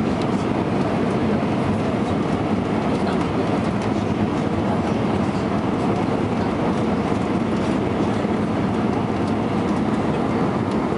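Steady rumbling cabin noise of an Airbus A320 airliner, with faint ticks scattered through it.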